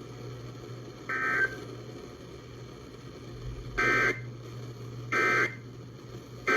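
EAS/SAME digital data tones from a weather radio: four short buzzy bursts, one about a second in and three more in quick succession near the end. These are the end-of-message code that closes the flash flood warning broadcast.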